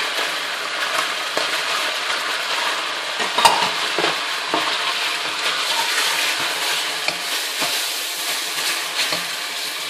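Chicken pieces with grated onion, crushed garlic and chopped parsley sizzling in hot olive oil in a pot, stirred with a wooden spoon, with small scrapes and ticks and one sharp knock about three and a half seconds in.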